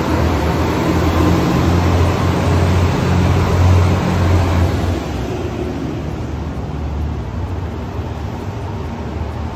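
A train running past with a loud, steady low rumble that eases off about five seconds in.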